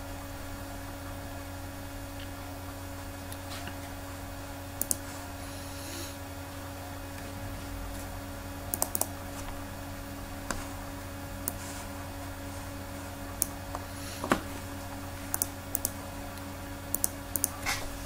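Scattered clicks of a computer mouse and keyboard keys, one or a few at a time with pauses between, over a steady low electrical hum.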